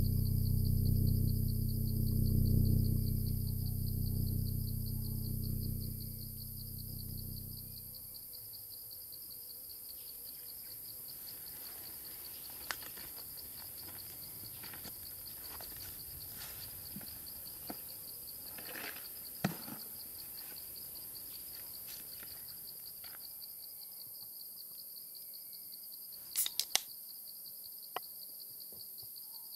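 Insects chirring steadily in a high, fast-pulsing drone, as in a forest chorus. A low hum fades out over the first eight seconds, and scattered small clicks and knocks follow, the loudest a quick cluster of clicks near the end.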